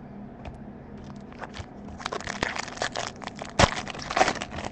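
A foil trading-card pack being torn open and crinkled by hand: a few light clicks at first, then about two seconds of dense crackling with a sharp snap near the end.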